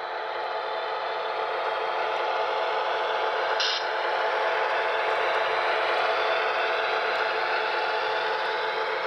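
HO scale model locomotive running on track: a steady mechanical running noise with several steady tones, swelling in over the first second or two. A brief high hiss comes about three and a half seconds in.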